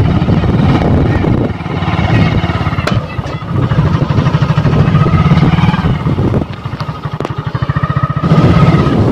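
Motorcycle engine running as the bike is ridden, its firing beat steady and strong. The engine note eases off for a stretch about two-thirds through, then picks up again near the end.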